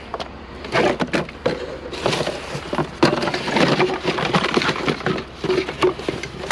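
Hands rummaging through a pile of discarded metal and plastic items, with irregular knocks and clatter mixed with rustling as pieces are moved and sorted.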